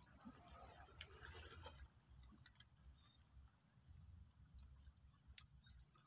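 Near silence: a faint low rumble, a few faint ticks, and one sharp click about five seconds in.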